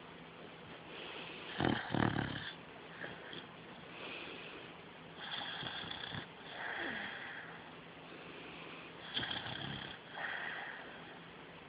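Sleeping beagle snoring: a string of noisy snoring breaths, about one every two to three seconds, the loudest about two seconds in.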